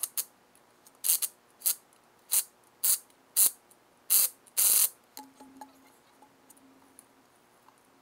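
Ryobi cordless driver spinning ATV wheel lug nuts in short trigger pulses, about nine quick bursts over five seconds. After that, only faint clicks and a faint low hum.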